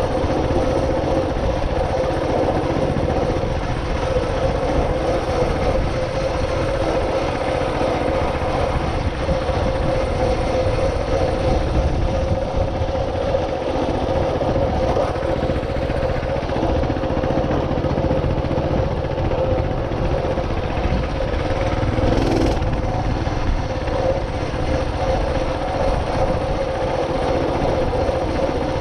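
A vehicle's motor running at a steady pitch under a loud, even rush of wind on the moving camera.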